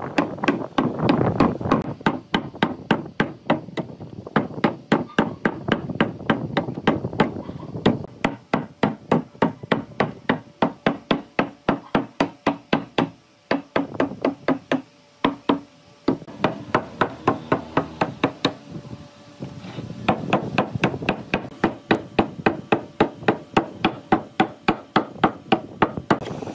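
Rapid, regular hammering on wood, about three blows a second, with a short pause a little past halfway.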